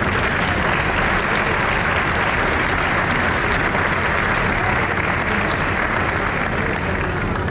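Audience applauding in a large hall: a steady round of clapping that fades away near the end.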